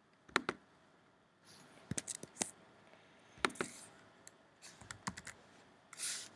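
Computer keyboard and mouse being worked: scattered sharp clicks and key taps, some in quick runs of two or three, with a short hiss near the end.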